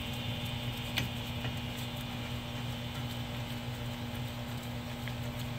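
A few light metallic clicks, the sharpest about a second in, as a brake caliper bolt is turned by hand with a socket on an extension, over a steady low hum.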